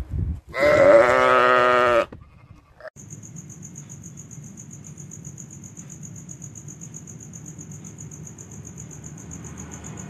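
A domestic sheep bleating: one long, loud, quavering bleat lasting about a second and a half. After it comes a quieter steady background of a high, pulsing insect-like chirring.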